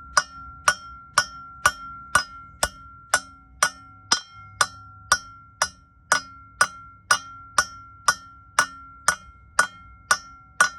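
Hammer blows about twice a second, tapping a new pilot bearing into the back of a 6.4 Hemi's crankshaft, each strike ringing with a clear metallic tone.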